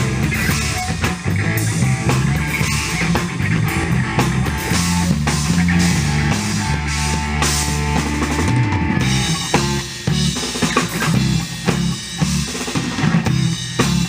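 Live rock-funk band playing an instrumental passage: drum kit with kick and snare hits over a busy bass line.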